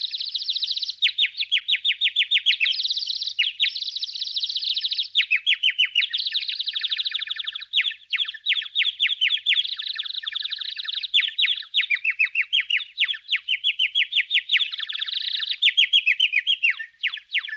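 Rapid, high bird twittering: runs of quick falling chirps, several a second, switching between fast trills and buzzier stretches.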